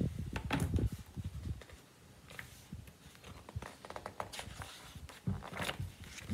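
Handling of a hardcover picture book: rustling with scattered knocks and clicks as a page is turned, a louder bump at the start.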